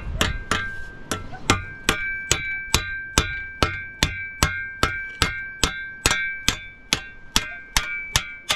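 A hammer striking the edge of a steel shovel blade laid on a rock, in an even rhythm of about two and a half blows a second. Each blow rings briefly with a clear metallic tone.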